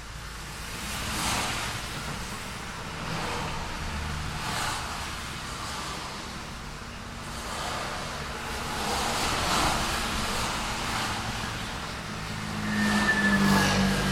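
Road traffic: cars passing one after another, each swelling and fading with the hiss of tyres on the road. The last and loudest pass comes near the end, with a deeper engine hum.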